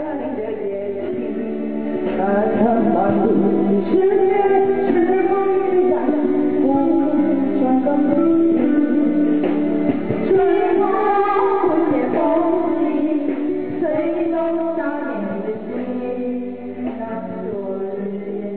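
Music: a woman singing a melody over instrumental accompaniment, louder from about two seconds in.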